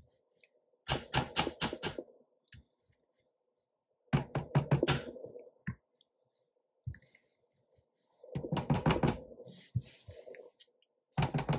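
A spoon knocked against the edge of a dish in four quick runs of about five raps each, shaking off dollops of a thick cheese mixture.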